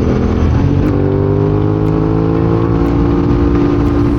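Motorcycle engine running at freeway speed, with wind noise on the helmet microphone. About a second in, the engine note steps up, then climbs slowly as the bike speeds up.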